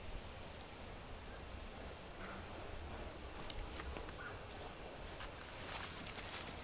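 Rural outdoor ambience with scattered short, high bird chirps. Near the end a hissing rustle comes up and grows louder.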